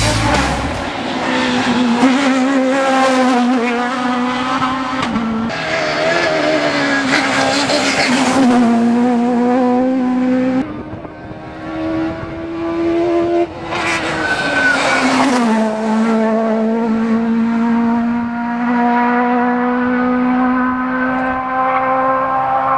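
Rally car engines revving hard on a tarmac special stage, the pitch climbing and dropping back repeatedly as the drivers change gear, in several short passes cut one after another.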